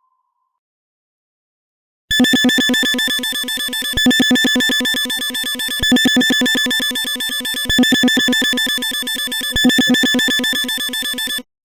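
Electronic alarm sound effect: a rapidly pulsing buzzing tone with two steady high pitches, swelling about every two seconds. It starts about two seconds in and cuts off suddenly near the end.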